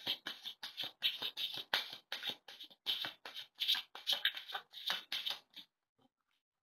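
Tarot cards being overhand-shuffled, a rapid run of crisp card-on-card slaps at about four a second that stops shortly before the end as the deck is squared.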